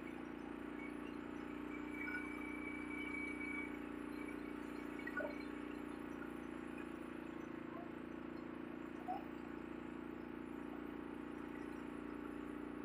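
Steady low engine hum aboard a fishing boat, with a faint high tone briefly about two seconds in and two small short blips later on.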